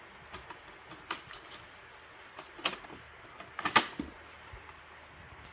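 A cassette being loaded into a Philips N2533 cassette deck: a run of short plastic clicks and knocks as the tape goes into the holder, the loudest pair about three and a half seconds in as the cassette door is pushed shut.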